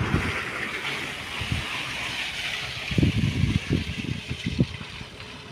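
Suzuki Jimny driving through a wet mud trench: a steady hiss of tyres and mud over the engine that fades after about three seconds, then a cluster of irregular low thumps.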